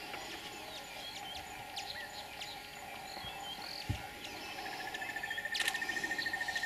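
Bush ambience: scattered short bird chirps over a steady insect drone, with a brief low thump near the middle. About two-thirds of the way through, a rapid, even, high trill starts and keeps going.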